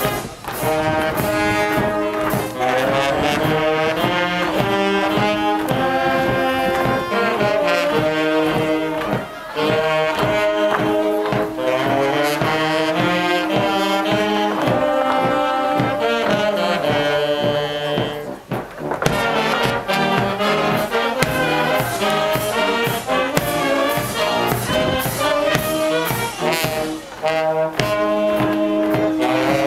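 Brass band playing a march: a brass melody over a steady marching beat, with a brief pause about two-thirds of the way in.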